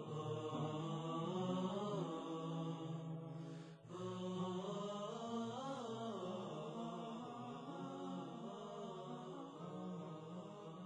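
Wordless nasheed vocals: a hummed, chant-like melody over a steady vocal drone, with a brief break about four seconds in, slowly fading out.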